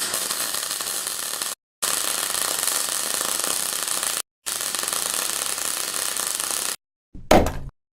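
Band saw running with a steady, hissy noise, cut into three stretches by abrupt edits; near the end a short loud thump.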